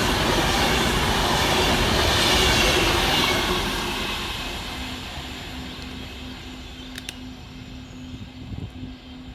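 Class 390 Pendolino electric train passing at speed, a loud rush of noise that fades away from about three seconds in as the train recedes. A faint steady hum is left, with a couple of sharp clicks near the end.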